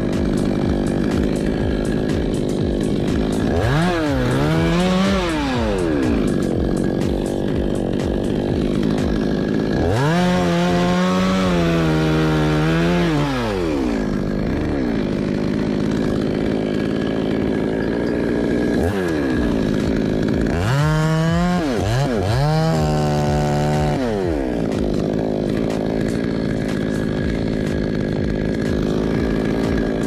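Chainsaw cutting a coconut palm, its two-stroke engine revving up and falling back several times. Each time the pitch climbs, holds high while the saw cuts, then drops back to a steady lower running speed.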